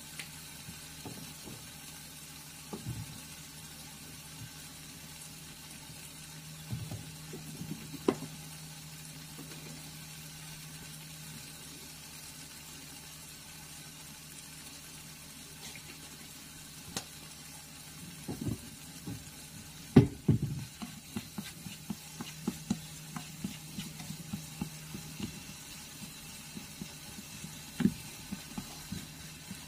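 Food sizzling softly in a skillet under a steady low hum, with a few scattered knocks. From about two-thirds of the way in, a wooden spatula scrapes and knocks against the pan in quick, irregular strokes as tomatoes are stirred and sautéed.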